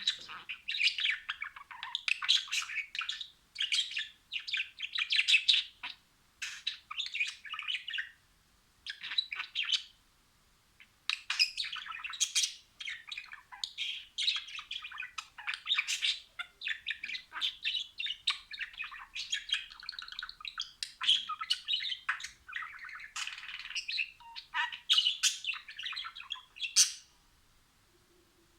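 Budgerigars warbling and chattering: fast, jumbled chirps and squeaky notes in phrases of a second or two, with short pauses between them and a break near the end.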